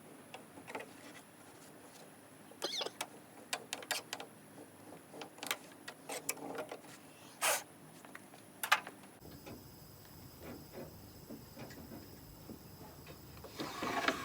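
Sliding glass side window of a Land Rover Series 2A being worked back and forth in its felt-lined channel, which is clogged with dirt and mould: irregular scrapes, clicks and knocks as the glass sticks and frees, with one sharp knock a little before halfway.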